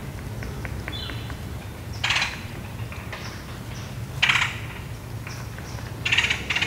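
An animal moving through dry leaf litter: three short, crunchy rustles about two seconds apart, with a brief chirping call about a second in, over a steady low rumble.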